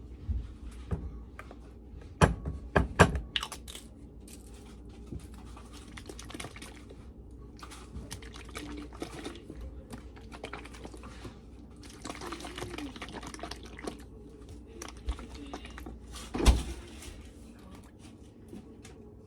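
Kitchen food-prep handling sounds: scattered clicks and taps of utensils and containers with a quick cluster early on, a short rushing noise about twelve seconds in, and one loud knock about two-thirds of the way through.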